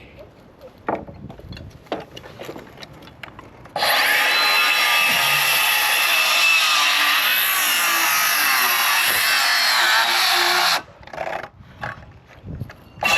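A few light taps and timber handling, then a circular saw runs and cuts through timber for about seven seconds, its pitch wavering under the cut, and stops; it starts again just before the end.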